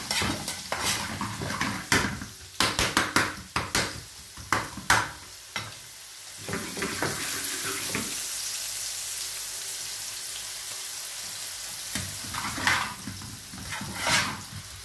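Chopped onions frying in a pan, stirred with a spoon that scrapes the pan in quick strokes during the first five seconds and again near the end, with a steady sizzle between.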